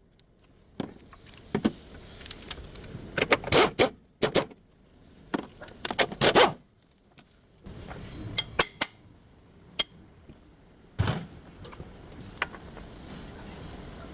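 Metal tools and car parts clinking and scraping: short clusters of sharp metallic clicks with quieter gaps between them, the kind of handling heard while working on a gear mount.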